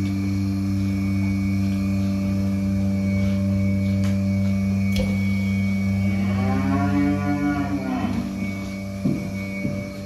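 A Holstein cow moos once, about six seconds in: a call of about two seconds that rises and then falls in pitch. Under it runs the steady hum of a portable bucket milking machine's vacuum pump.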